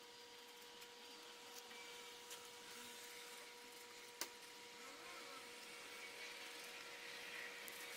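Near silence: faint room tone with a steady thin hum and hiss, broken by one small click a little past four seconds in.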